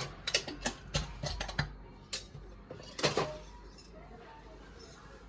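Kitchen utensils clinking and knocking: a quick run of sharp clicks in the first two seconds, then a louder clatter about three seconds in.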